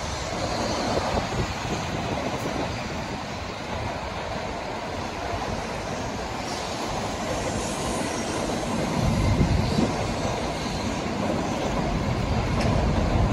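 Tokaido Shinkansen N700-series bullet train running along an elevated viaduct: a steady rumble of wheels on rail that grows louder in the last few seconds.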